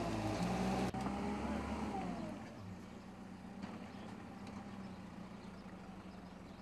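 An engine running with a steady low hum, louder for about the first two seconds and then fainter.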